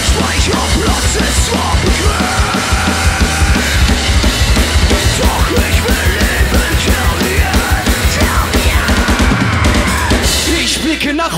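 Live punk rock band playing loud and fast: electric guitars, bass and drum kit under shouted vocals from two singers.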